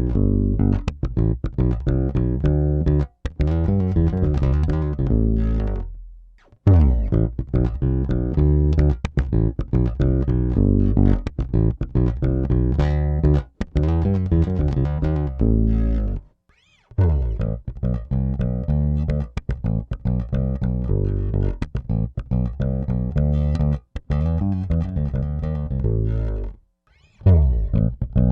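Peavey T-40 electric bass played fingerstyle: phrases of plucked notes with strong low ends, broken by a few short pauses.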